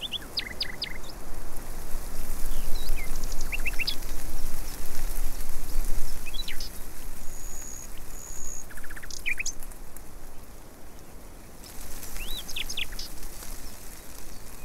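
Small birds chirping in short, scattered calls, with one brief thin whistle about halfway through, over a steady background hiss of outdoor noise.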